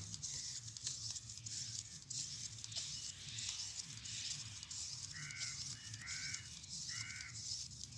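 Quiet outdoor background with a steady high-pitched hiss and scattered faint clicks. About five seconds in come three short pitched animal calls, roughly a second apart.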